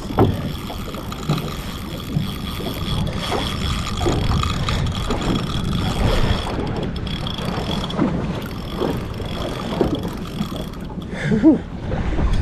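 Boat's outboard engine running under wind and water noise, with a spinning reel's drag steadily giving line as a hooked big fish makes a long run.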